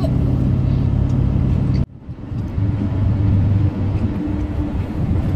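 Steady low drone of a vehicle driving, heard from inside the cab. The sound cuts out briefly just under two seconds in, then the same drone resumes.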